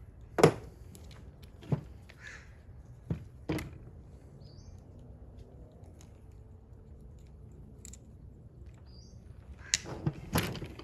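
Sharp metallic clicks and knocks of hand tools working hose clamps and fuel hoses, a few spread through and a quick cluster near the end, the loudest about half a second in. A bird calls faintly in the background.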